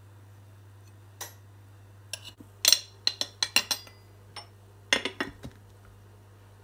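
Metal spoon clinking and scraping against a small glass jar while scooping out flour: sharp clicks, one about a second in, a quick run of them from about two to four seconds, and a few more around five seconds.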